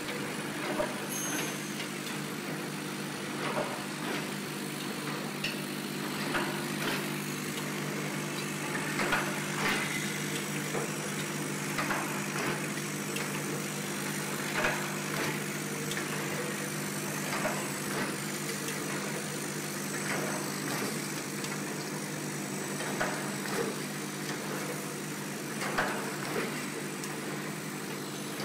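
Transparent-film (cellophane) overwrapping machine running: a steady motor hum with the clatter of its mechanism, a louder clack about every three seconds as each wrapping cycle goes through.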